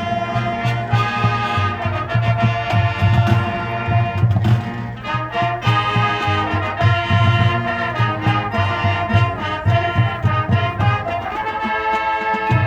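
Marching band playing: brass section sounding sustained chords over a steady low drum beat and percussion hits.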